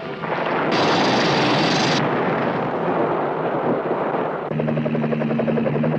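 A loud rushing, hissing blast from Godzilla's atomic heat-ray breath setting the brush around King Kong on fire, fullest and brightest about a second in. About four and a half seconds in it gives way to a helicopter's steady engine drone with a rapid rotor chop.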